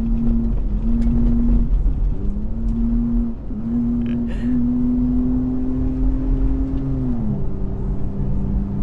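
Off-road 4x4's engine running under load while driving on desert sand, over a steady low rumble; its pitch dips briefly a few times early on and then falls about seven seconds in.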